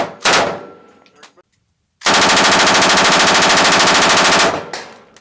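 Belt-fed machine gun firing on full automatic. A burst cuts off as the sound begins and a very short burst follows just after. About two seconds in comes one long burst of about two and a half seconds, and its echo fades away after it stops.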